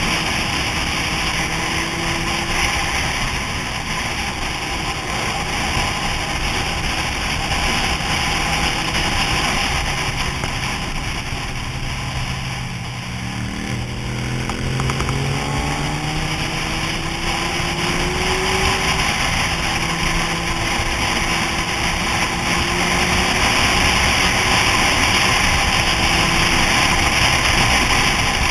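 Sport motorcycle riding at road speed, its engine under a steady rush of wind noise. About midway the engine eases off, then its pitch climbs steadily for several seconds as the bike accelerates out of a bend.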